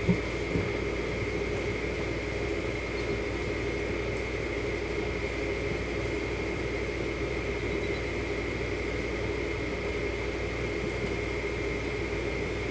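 Steady machine hum with a constant high whine running through it, and a short knock just after the start.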